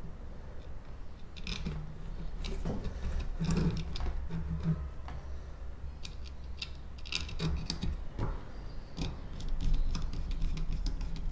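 Scattered light clicks and scrapes of hand work: stranded copper speaker wire being fed into a screw terminal block on an amplifier circuit board, and a small screwdriver working the terminal screw.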